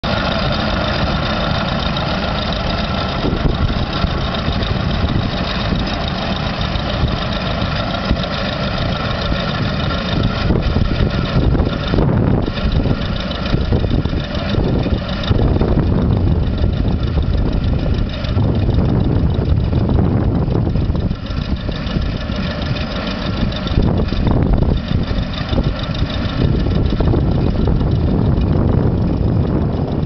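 Vintage Saunderson Universal tractor's engine running steadily under load as it pulls a trailed plough through stubble.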